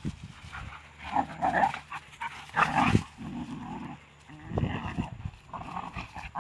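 Two young shepherd dogs play-fighting, snarling and growling in irregular rough bursts that sound like snarling pigs.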